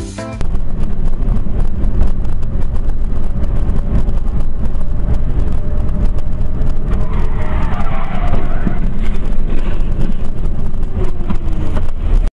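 A car on the move: loud, steady engine and road rumble. In the second half a wavering whine sweeps up and down, falling away toward the end, and the sound cuts off abruptly at the close.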